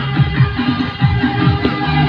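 Loud background music with a bass line and a steady beat.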